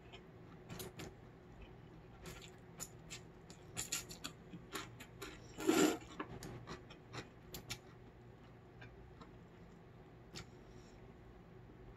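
Close-up eating sounds of slurping cold naengmyeon noodles and chewing: a run of small wet mouth clicks and smacks, with one louder slurp about six seconds in.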